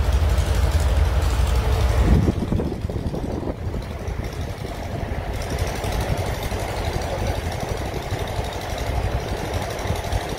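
Steady low mechanical rumble of running machinery, with an abrupt change in the sound about two seconds in.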